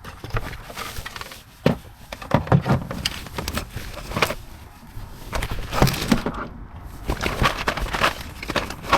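Irregular knocks, clicks and rustling of things being moved about and handled, as someone searches through gear.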